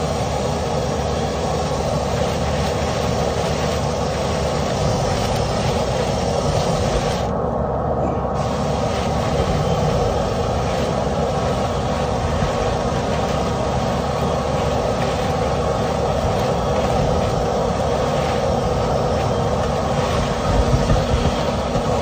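Dryer-vent cleaning equipment running steadily: a constant motor drone with a rushing noise and a steady hum, unchanging throughout.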